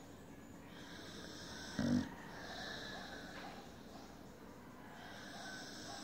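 Pit bull snoring in its sleep: one short, loud snort about two seconds in, with quieter breathing around it.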